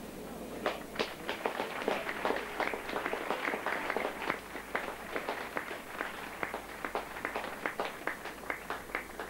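Crowd applauding, a loose scatter of separate sharp claps that starts within the first second.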